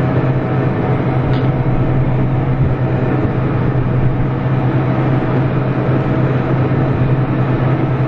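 Case IH combine harvester running steadily while harvesting wheat: a constant, even engine drone with a strong deep hum.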